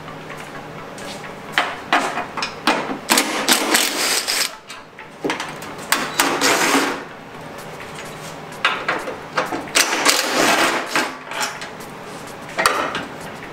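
Cordless drill/driver backing out the bolts along the top of a Mustang's front fender, running in several bursts of a second or a few seconds with short pauses between.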